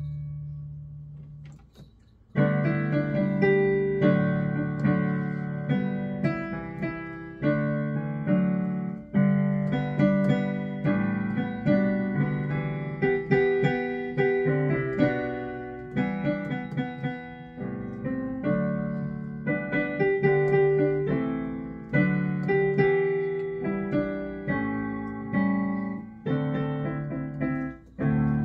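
Yamaha Clavinova digital piano playing a Christmas medley in chords. A held low chord dies away over the first two seconds, then a new passage begins with full chords and a melody on top.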